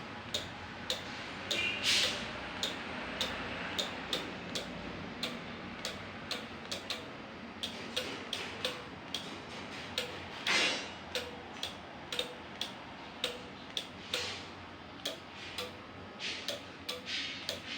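Steady rapid ticking, about two clicks a second, with two louder short rustling noises about 2 seconds and 10 seconds in.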